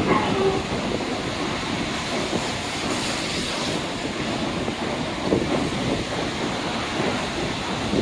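Tokaido Shinkansen train moving along a station platform: a steady rushing rail noise.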